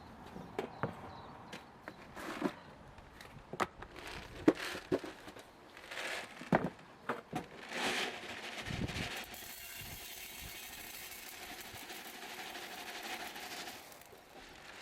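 Scattered sharp clicks and knocks, as of things being handled, followed by a steady hiss lasting about four seconds near the end.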